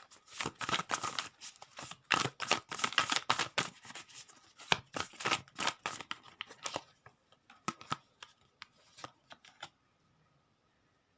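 Tarot cards being shuffled and handled: a dense run of quick flicking and rustling for about seven seconds, thinning to a few scattered snaps and taps that stop shortly before the end.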